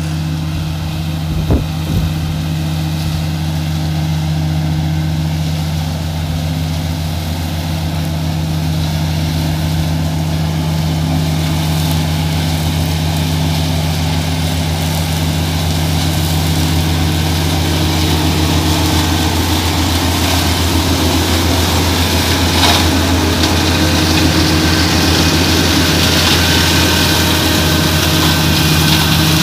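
Kubota MX5100DT tractor's four-cylinder diesel engine running steadily under load while it drives a Land Pride flail mower shredding grass. The mower's hissing rush of cutting grows louder through the second half as it comes close. Two brief knocks sound near the start.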